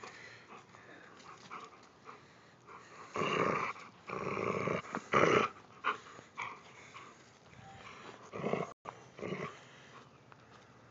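Dog growling in several loud bursts while gripping and tugging on a rope.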